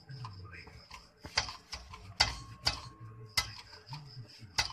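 Irregular sharp metallic clicks and knocks, about five, as the propeller shaft of a Toyota Kijang KF80 is worked by hand at its center bearing; the bearing is called noisy.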